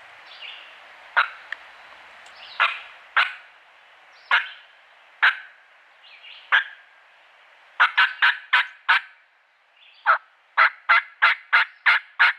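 Wild turkey calling: sharp, loud clucks, scattered at first and then run together into two fast series in the second half, with fainter drawn-out turkey calls behind them.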